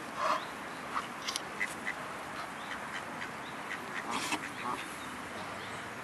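Grazing geese giving short, scattered quacking calls, the first about a second in being the loudest, with soft clicks from their bills pecking at the grass.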